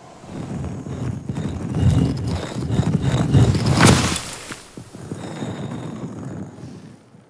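Stone staircase sliding out and unfolding step by step: grinding, rumbling stone with a run of small clacks. It builds to its loudest about four seconds in, then dies away.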